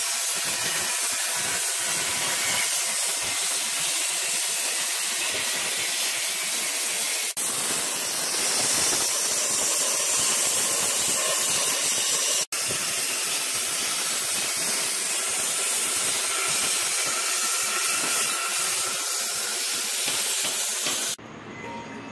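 Plasma cutter cutting through steel frame metal: a steady loud hiss that breaks off briefly twice and stops suddenly near the end.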